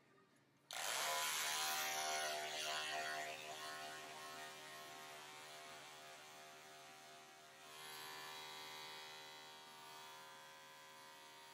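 Electric dog grooming clipper starting up about a second in and running with a steady buzz as it shaves down a dog's matted coat. The buzz is loudest for the first couple of seconds, then quieter.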